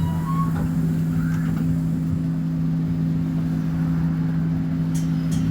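Scania K270IB bus's five-cylinder diesel engine running at a steady speed, a constant low drone with an even pitch. A few faint clicks near the end.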